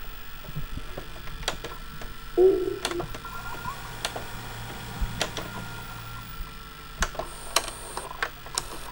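Sparse, irregular sharp clicks and ticks, with one short louder sound about two and a half seconds in, over a faint steady hum and tone, from a VHS tape playing back on a VCR and CRT television.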